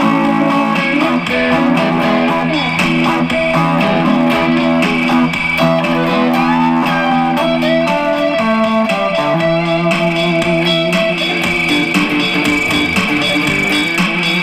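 Background music: electric guitar, a 1973 Gibson L6-S played through a Fender Hot Rod Deluxe III amp, playing chords and single-note lines, with one long held note in the middle.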